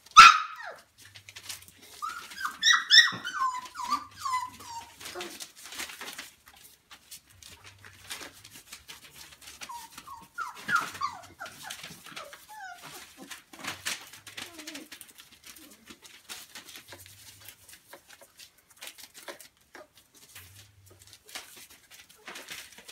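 Four-week-old Labrador retriever puppies whimpering and yipping in high little calls, in two bouts, with paws scuffling on newspaper in between. A loud sharp sound comes right at the start.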